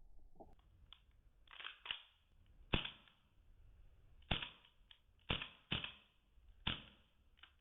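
WE M1911 gas-blowback airsoft pistol firing a string of semi-automatic shots, each a sharp crack with the slide's clack, at uneven spacing, about seven loud ones among a few fainter clicks.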